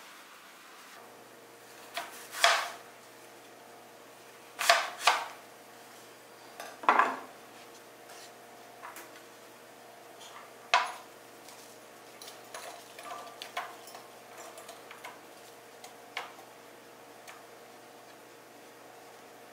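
Kitchen prep knocks and clinks: fruit pieces and a knife handled on a wooden cutting board beside a glass mug. A handful of sharp knocks come spread over the first eleven seconds, then a run of lighter taps and clicks.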